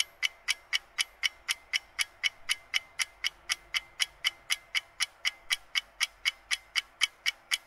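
Clock-ticking sound effect for a quiz countdown timer: steady, evenly spaced ticks, about four a second, marking time running out on the answer.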